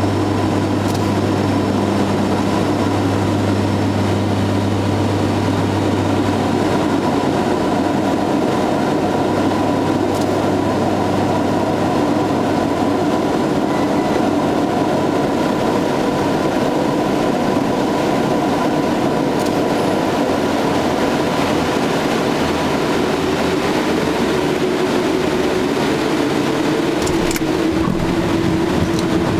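Cabin noise of a Piper Cheyenne IIIA's twin Pratt & Whitney PT6A turboprops on final approach and landing: a steady propeller and engine drone with airflow noise. The low propeller hum dies away over the first several seconds as power comes back, and a tone rises in pitch during the last few seconds on the runway rollout.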